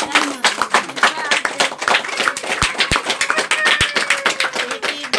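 A crowd of children and adults clapping unevenly, with voices calling out over it, and a few low thumps about halfway through.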